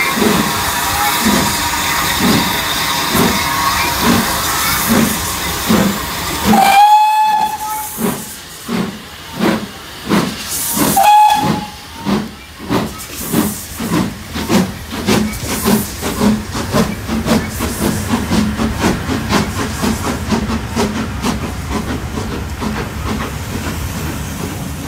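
Double-headed GWR Castle class 4-6-0 steam locomotives, 5043 Earl of Mount Edgcumbe leading 7029 Clun Castle, pulling away under steam: exhaust beats quicken from about one a second to two or three a second as the train gathers speed, over a steady hiss of steam. Two short steam whistle blasts sound about seven and eleven seconds in.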